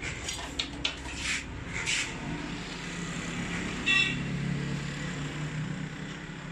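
Light metal clicks and scrapes of small injector parts and tools being handled on a metal workbench in the first two seconds. About four seconds in comes a short pitched beep, over a low steady rumble.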